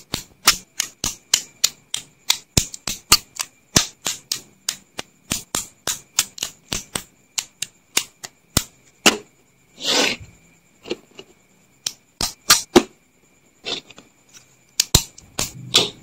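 LEGO bricks and plates clicking as they are pressed together, a fast run of sharp clicks several a second, with a longer scraping burst about ten seconds in and sparser clicks after.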